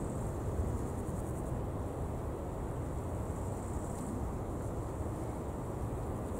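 Steady low outdoor rumble, with faint high insect chirping above it in the first second or so.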